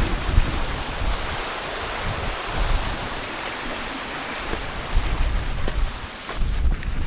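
Strong wind gusting across the microphone: a steady rushing hiss with a low rumble that swells and drops with the gusts.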